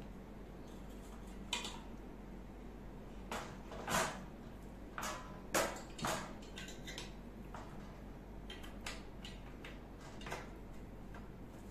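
Scattered clicks and knocks of plastic and metal grill parts being handled as the plug-in temperature control of a Tefal electric grill is fitted into its socket. The loudest knocks come about four and five and a half seconds in.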